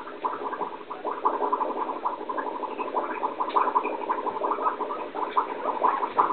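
Newborn puppies squeaking and grunting in a quick, irregular string of short, wet-sounding calls as their mother noses among them and settles down.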